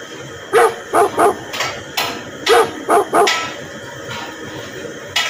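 Dog barking: two bursts of three quick barks, about a second and a half apart, with a few sharp knocks between them.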